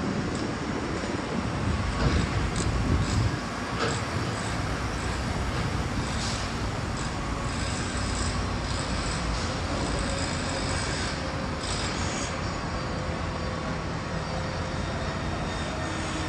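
Steady outdoor city rumble of vehicles and machinery, swelling louder for about a second and a half near the start.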